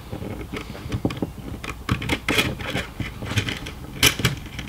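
Old steel recoil starter spring being eased out of a Stihl MS460 chainsaw's plastic starter housing by hand: irregular clicks, ticks and scrapes of metal on plastic, with the sharpest clicks about four seconds in.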